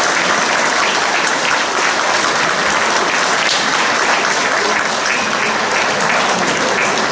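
Audience applauding steadily: a dense mass of hand claps.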